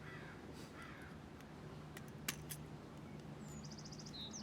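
A bird gives a quick run of high chirps near the end. About two seconds in come a few light, sharp taps, all over a faint low steady hum.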